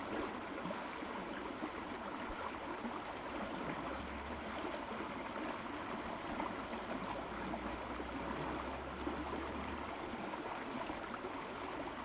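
Steady running-water noise, an even fizzing wash.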